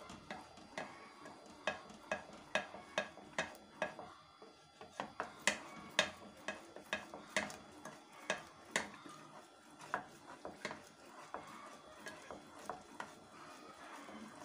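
A wooden spoon stirring sauce in a metal saucepan, knocking and scraping against the pan's side and bottom in an uneven run of sharp clicks, about two to three a second, loudest in the middle stretch.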